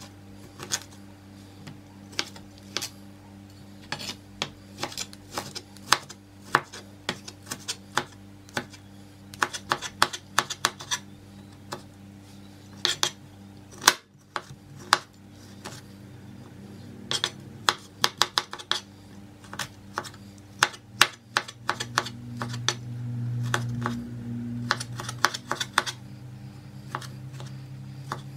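Chef's knife chopping kiwi fruit on a plastic cutting board: quick, irregular knocks of the blade on the board, coming in runs of several a second. A low hum grows louder for a few seconds near the end.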